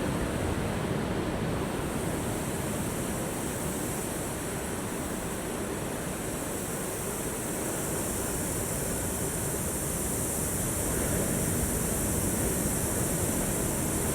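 Ocean surf: a steady rush of waves that eases a little midway and builds again toward the end.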